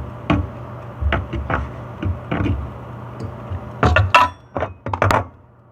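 A utensil clinking and knocking against a cooking pot as ramen noodles are stirred. About four seconds in comes a quicker flurry of ringing metallic clinks.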